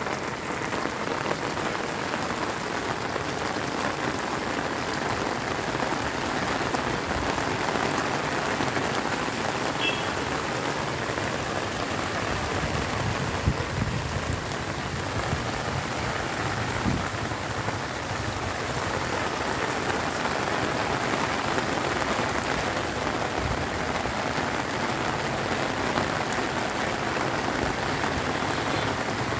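Steady rain falling on rooftops and trees, an even hiss that does not let up.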